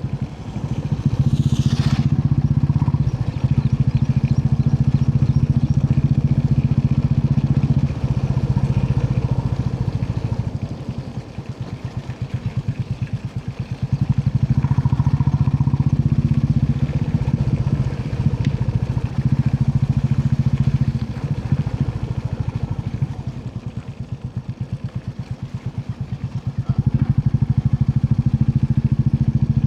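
Royal Enfield Classic 350's single-cylinder engine thumping under way, rising in several stretches as the throttle opens and dropping back between them. A brief high hiss about two seconds in.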